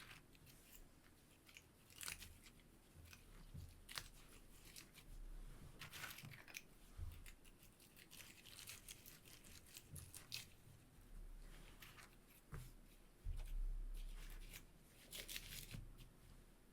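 Faint, irregular crackling and rustling of dried flower stems and plant material being handled and pushed into a string weaving, with a few soft bumps near the end.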